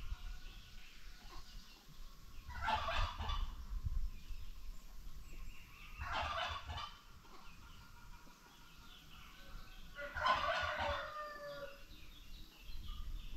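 Farmyard poultry calling: three loud, rapid, stuttering calls about a second long, spaced roughly three to four seconds apart, over quieter background bird chatter.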